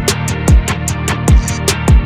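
Background music with a steady beat: a deep kick drum that drops in pitch on each hit, about every 0.8 s, over regular hi-hat ticks and held notes.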